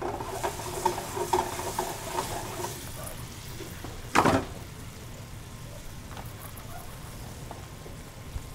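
Mushrooms sizzling in a stainless steel skillet on a gas burner as their sherry vinegar and honey liquid reduces to a glaze. The pan clinks and scrapes against the burner grate for the first three seconds, and there is one sharp clank about four seconds in.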